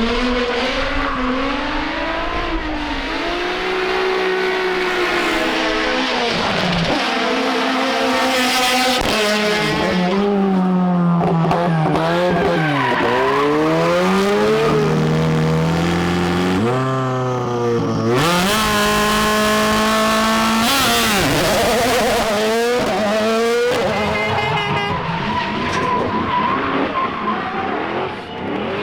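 Rally car engines revving hard, their note climbing and falling again and again through gear changes and lifts, with tyres skidding. Several cars are heard in turn.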